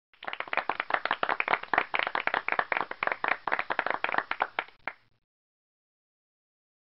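Recorded applause sound effect: a crowd clapping for about five seconds, then cutting off abruptly.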